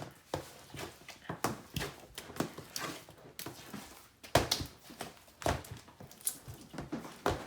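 Thick slime squelching, with irregular wet clicks and pops a few times a second, as it is worked out of an upturned container.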